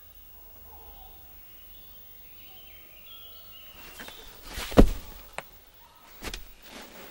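A man bumping and pressing against a wall. There is one loud dull thud a little before the five-second mark, a small click just after it, and a second, softer thud about a second and a half later.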